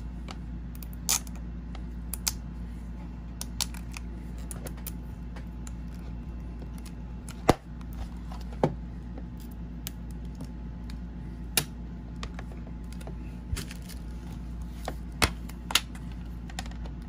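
Scattered sharp clicks and taps of a plastic DVD case being handled: the security sticker peeled off, the case knocked down on the tiled table about halfway through (the loudest tap), and the case clicked open near the end. A steady low hum sits underneath.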